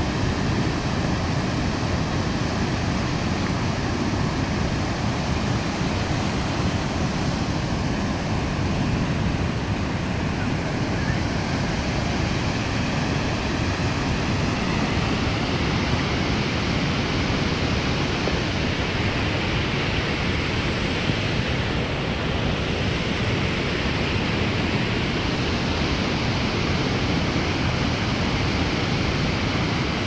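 Gullfoss waterfall, a large two-tiered falls on the Hvítá river, rushing steadily into its gorge: an unbroken wash of water noise, heavy in the low end.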